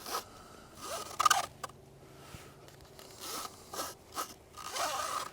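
Nylon mounting strap of a security camera being pulled and cinched through its buckle: about six short zipper-like rasps, the loudest a little after a second in.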